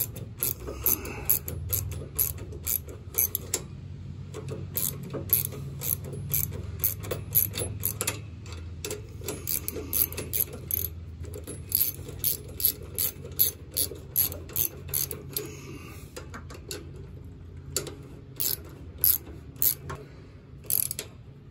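Hand socket ratchet clicking in quick runs with short pauses as it turns a bolt on a lawn tractor's rear brake assembly.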